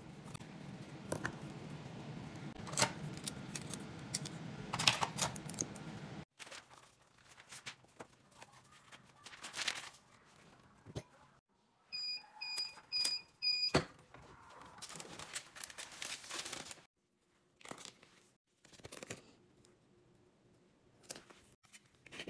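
Clicks and handling noise on a worktable. About halfway through, a digital heat press controller beeps four times, about half a second apart, and a sharp click follows.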